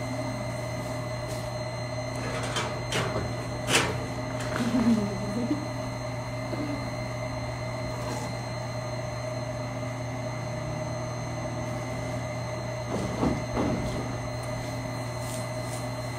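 A steady low hum with a few fixed higher tones over it, broken by short clicks and knocks about three to four seconds in and again about thirteen seconds in.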